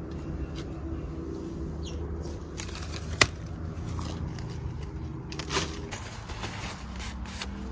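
Hands handling an avocado scion and grafting tools over a steady low background rumble, with one sharp click about three seconds in and a brief rustle a couple of seconds later.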